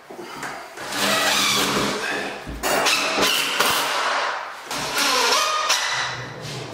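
Cordless drill driving screws into a wooden window frame to fix a blind bracket, the motor running in spurts and speeding up and slowing down, with a knock about two and a half seconds in.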